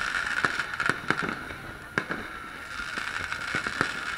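Fireworks display exploding overhead: a run of irregular bangs and crackles, with one sharper bang about two seconds in.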